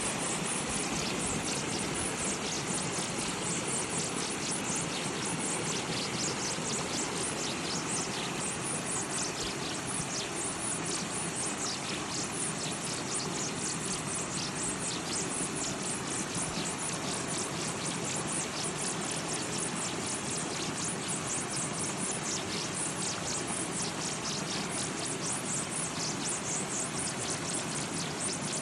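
Water running and splashing steadily, with many small high splashes or bubbles over a continuous rush.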